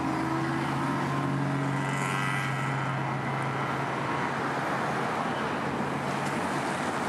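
A motor vehicle running, with a steady engine hum under dense road and traffic noise. The sound starts abruptly.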